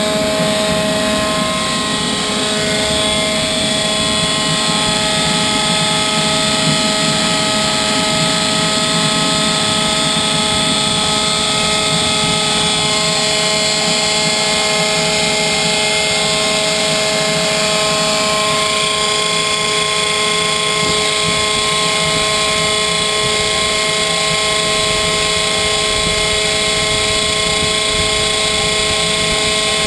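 Homemade turbocharger-based gas turbine running steadily with only its nylon reduction gears as a load: a loud, even rush with several steady whining tones.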